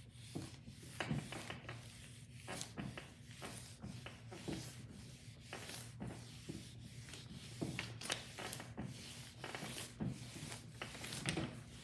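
Clothes iron pushed back and forth under pressure over silicone release paper, a papery swish with each stroke, roughly two a second. It is heat-pressing a rice-paper painting onto the adhesive film beneath to flatten its wrinkles.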